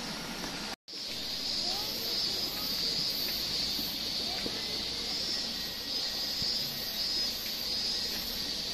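Steady outdoor ambience beside a spring-fed pond: an even, high hiss with a faint pulsing edge, and faint distant voices. The sound drops out completely for a moment about a second in.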